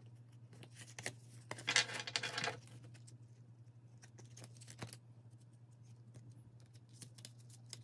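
A hand of UNO playing cards being handled and gathered from a fan into a stack: the card edges click and slide against each other, with a louder, denser rustle of cards sliding together about two seconds in.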